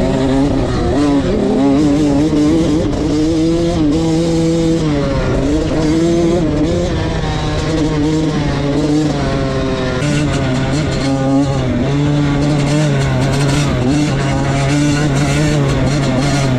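Motocross bike engine heard on board, its pitch rising and falling as the throttle is worked around the track. About ten seconds in, the sound changes to a steadier, lower engine note.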